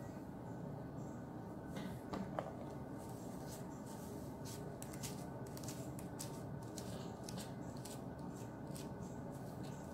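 Pink plastic detangling brush pulled through a section of wet, product-coated hair in a quick series of short swishes, starting a few seconds in. Under it runs a steady low background hum.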